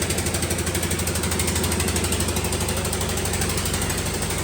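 An engine idling steadily with an even, fast knocking pulse.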